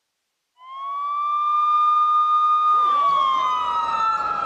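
A siren wail opens the track. It starts about half a second in, rises briefly to a steady high tone, then from just before three seconds slides down in pitch while a rising noisy wash builds beneath it.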